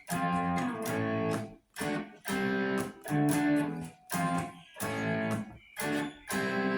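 Electric guitar playing a chord riff: about eight strummed chords, each stopped short with brief gaps between.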